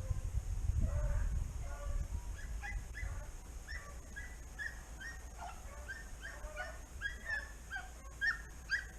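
A pack of rabbit-hunting dogs giving tongue in the distance: many short, repeated yelping bays through the whole stretch, the sign of hounds running a rabbit's track. A low wind rumble on the microphone is heaviest in the first second or so.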